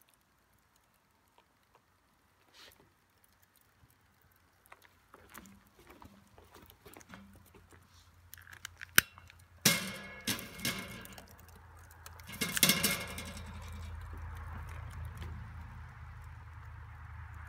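Wood fire crackling and popping in a metal fire pit, faint and sparse at first. About halfway through come several louder sharp knocks and rattles as the burning wood is poked with a rod, then a steady low rushing sound.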